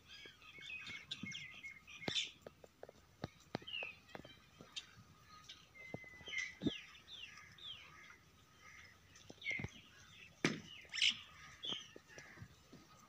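Small birds chirping and twittering in quick, short notes, some falling in pitch, with scattered clicks.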